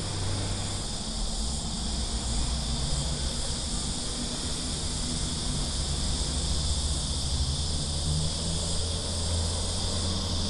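Steady, high-pitched chorus of cicadas in the trees, over a low rumble.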